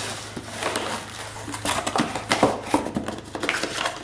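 A taped cardboard parts box being torn open by hand. Packing tape rips and cardboard flaps crackle and rustle in a quick, irregular series.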